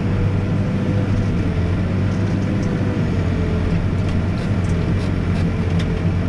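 Backhoe's diesel engine running steadily, a continuous drone with a faint steady whine, and a few light clicks and knocks in the second half.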